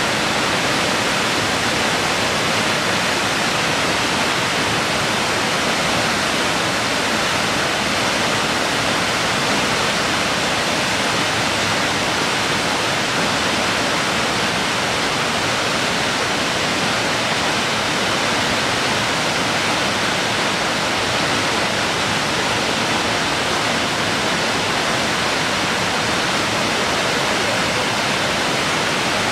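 Waterfall pouring into a rocky pool and creek: a steady, even rush of water, strongest in the hiss range, holding the same level throughout.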